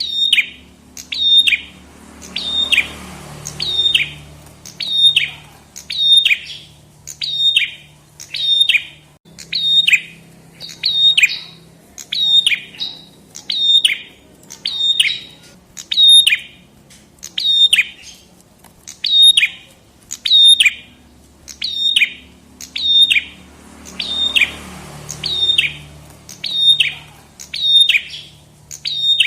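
Prenjak kepala merah (red-headed prenjak) calling: a sharp, high note that drops quickly in pitch, repeated steadily about one and a half times a second.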